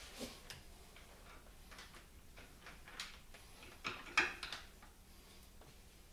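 Scattered light clicks and scrapes of a screwdriver probing at an old rear axle seal inside the axle housing, with a sharper tap about four seconds in.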